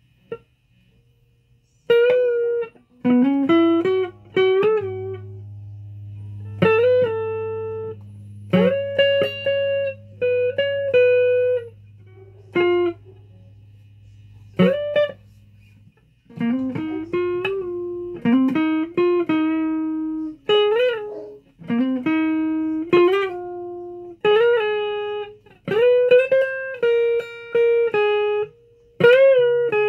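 Guitar played as single plucked notes, many sliding up in pitch as they start, with a low note held underneath for about ten seconds in the middle. The playing begins about two seconds in.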